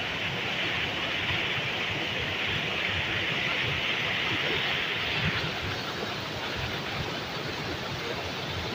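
Waterfall rushing: a steady roar of falling water, its hiss easing slightly about five seconds in.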